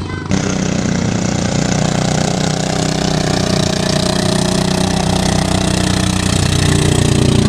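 Small motorised bangka (outrigger boat) engine running steadily, coming in abruptly just after the start and getting slightly louder near the end.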